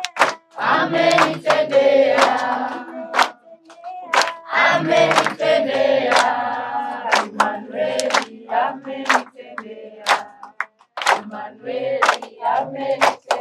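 A group of voices singing a worship song together, with steady hand-clapping on the beat, a little more than one clap a second. The singing breaks off briefly about three and a half seconds in and again near ten seconds, while the clapping keeps going.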